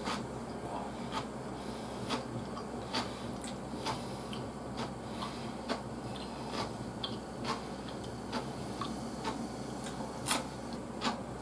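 Close-up chewing of crisp pickled vegetables: small sharp crunches and clicks at an irregular pace, about one a second.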